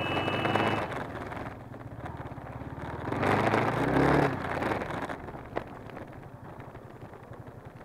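Motorcycle engines running. One swells louder about three seconds in, with a slight rise in pitch, then falls back, and there is one sharp click a little later.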